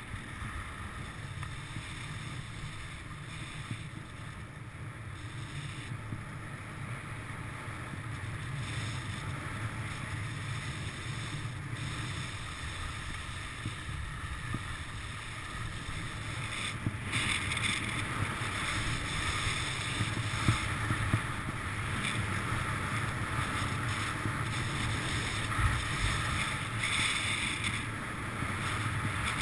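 Skis running down packed spring snow, a steady hiss of snow under the skis with wind rushing over the microphone. It grows louder in the second half as speed picks up, with a few short knocks from bumps.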